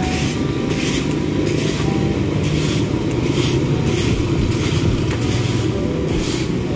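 Repeated swishing strokes of a broom sweeping debris off pavement, about one to two strokes a second, over a steady low rumble.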